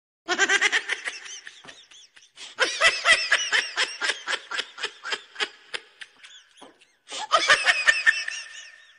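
Laughter sound effect: three bouts of rapid, high-pitched laughing pulses, about five a second, with short breaks about two and a half seconds in and about seven seconds in. It starts and stops out of dead silence, as an edited-in clip.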